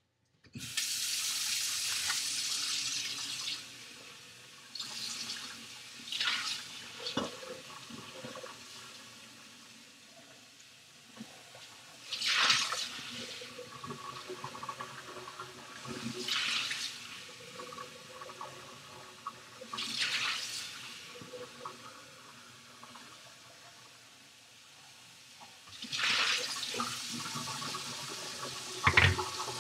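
Kitchen tap running into a sink in several spells of a few seconds while a blender jar and a glass are rinsed under it, with knocks of the glassware against the sink and a heavier thump near the end.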